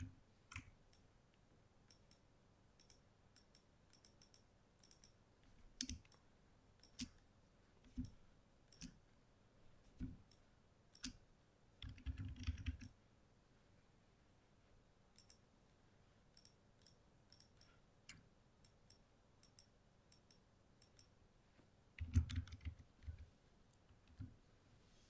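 Computer mouse and keyboard clicks against a quiet room: single clicks about a second apart, and two short flurries of clicks, one about halfway through and one near the end.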